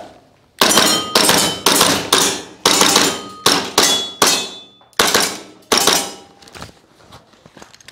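WE Glock 17 Gen5 gas blowback airsoft pistol in an SMG conversion kit firing about a dozen single shots in quick succession, with metallic clangs and ringing from BBs striking steel targets. The shots stop about six and a half seconds in.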